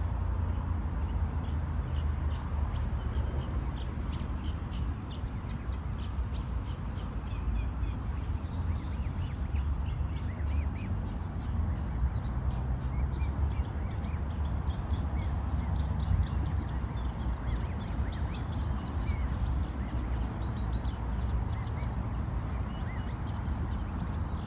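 Many short bird calls scattered throughout, over a steady low rumble.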